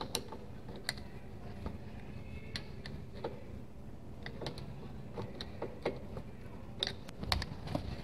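Scattered, irregular faint clicks from a 1964 VW Beetle's drum brake adjuster being turned with a screwdriver through the adjusting hole, setting the brake shoes a little tighter so they drag slightly on the drum. A dull knock near the end.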